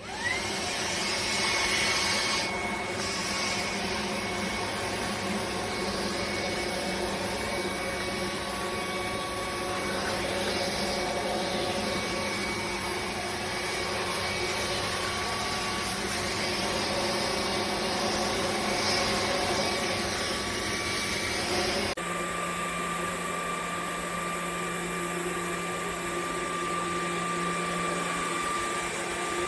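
Cordless stick vacuum cleaner switched on, its motor spinning up with a short rising whine, then running steadily. About 22 seconds in, its tone changes abruptly to a different steady hum.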